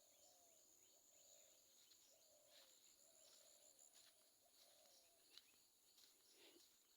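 Faint birds calling: a low call repeated in a steady series, with scattered higher chirps above it and a thin, steady high-pitched tone behind.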